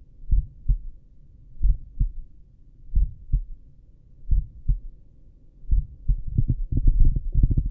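A slow human heartbeat heard through a stethoscope at the apex of the heart: paired lub-dub thumps, about 45 beats a minute. From about six seconds in, a stretch of rapid, rumbling knocks covers the beats.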